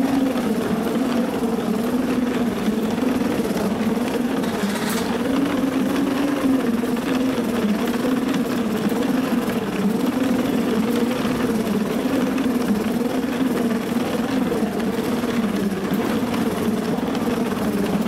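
Airport moving walkway running: a steady mechanical hum whose pitch wavers up and down about once a second.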